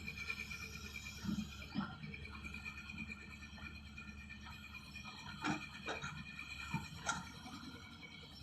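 Hyundai 210 excavator working: a steady low engine hum under a steady high whine, with a handful of sharp knocks and clanks.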